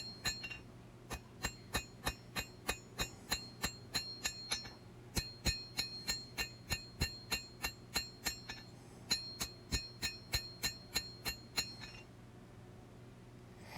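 Hand hammer striking hot steel on an anvil, forging the bevels of a double-edged blade: steady blows about three a second, each with a high ringing ping from the anvil. Three runs of strikes with two short breaks, the hammering stopping shortly before the end.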